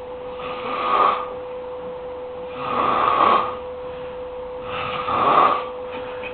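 Loud snoring: three rough snores about two seconds apart, each lasting under a second. A steady hum runs underneath.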